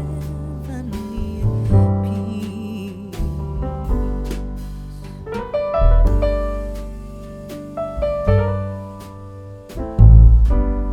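Background music led by piano, with a deep bass note struck about every two seconds.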